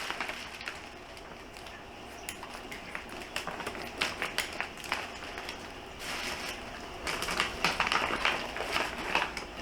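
A gauge's envelope packaging being cut open and unwrapped: a string of crinkles and small sharp clicks, which come denser and louder in the last few seconds.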